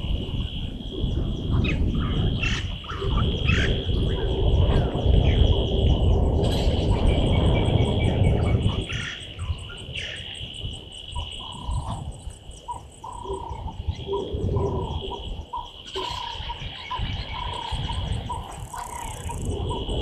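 Bush ambience: a steady high insect drone with a faster buzzing insect above it, and birds chirping. A low rumble of wind on the microphone dies down about halfway through. After that an animal repeats a short low call a few times a second.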